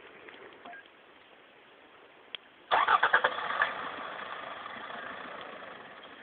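Toyota Land Cruiser 120's engine being restarted: a click, then the starter cranks for about a second before the engine catches and runs, fading toward the end. The crew concludes the engine is choking because its exhaust pipe is plugged with leaves.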